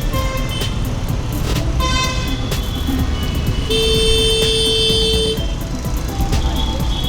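Busy town traffic with vehicle horns honking over a steady low rumble: short toots near the start and about two seconds in, then one long horn blast of about a second and a half starting near four seconds in.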